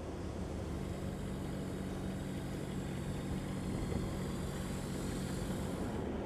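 Forklift engine running with a steady low hum over a bed of dockside noise; the hum sets in about a second in and fades out shortly before the end.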